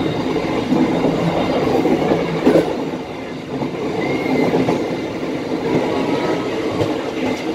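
Passenger train running at about 85 km/h, heard from its cab: a steady loud rumble and rattle of wheels on the rails.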